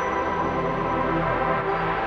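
Background music with held chords.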